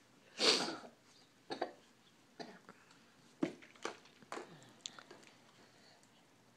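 A single cough about half a second in, followed by a few short, soft knocks and taps.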